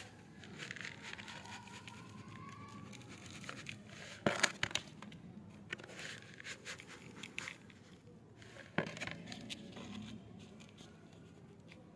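Gritty potting mix of sand, perlite and cocopeat being handled and pressed down by hand in a small plastic pot: a scraping, crunching rustle, with a few sharp knocks about four and nine seconds in.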